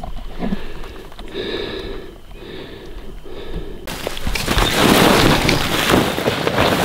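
Dry grass and clothing rustling and brushing close against the microphone as a hunter crawls through tall grass to get into a prone rifle position, starting suddenly about four seconds in and the loudest sound here. Before it, a quieter stretch with a few faint repeated bird calls.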